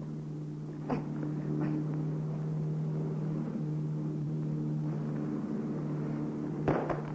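Steady low drone of a motor launch's engine, with a short knock about a second in.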